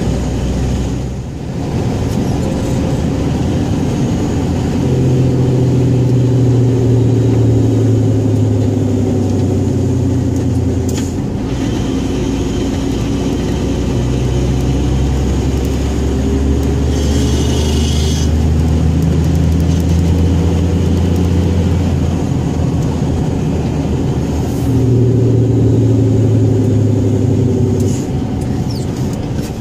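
Scania 114G truck's 11-litre six-cylinder diesel running steadily, its note shifting in pitch and level several times as the load changes. There is a brief dip about a second in and a short hiss partway through.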